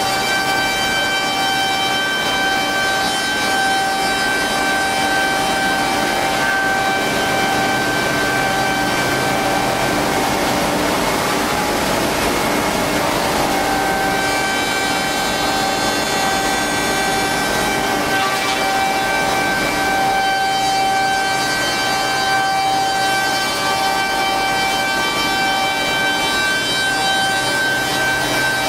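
CNC wood shaper running, its spindles giving a steady multi-tone whine. About ten to fourteen seconds in the whine fades under a rougher rushing noise as the machine works the wood, then comes back.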